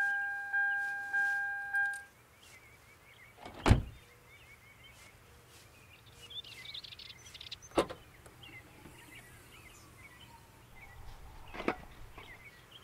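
A car's warning chime dings at one steady pitch a little under twice a second and stops about two seconds in. A car door then shuts with a heavy thump. A sharp latch click follows about four seconds later, and another knock comes near the end as the boot is opened. Birds chirp faintly throughout.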